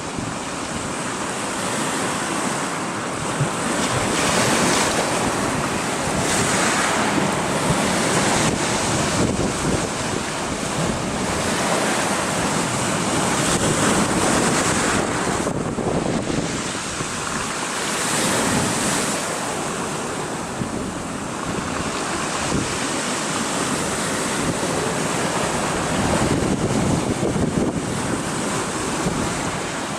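Sea waves breaking and washing on a beach, the surf swelling and easing every few seconds, with wind buffeting the microphone.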